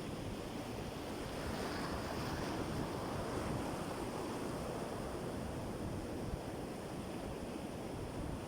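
Sea surf washing onto a beach, a steady rush that swells a little about two to three seconds in, with wind rumbling on the microphone.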